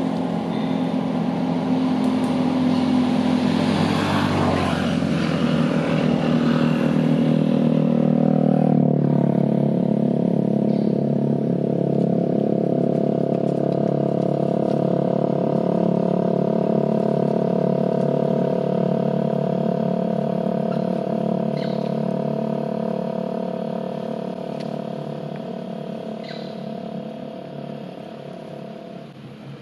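An engine running steadily, its pitch dropping slightly about a third of the way in, then fading away near the end.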